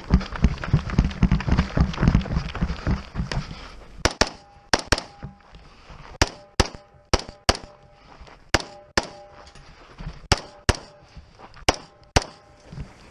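Rifle shots from an AR-15-pattern carbine fired in a steady string of about fifteen, most followed a fraction of a second later by the clang and ring of a struck steel target. The first three seconds hold a loud low rumble with knocks before the shooting starts.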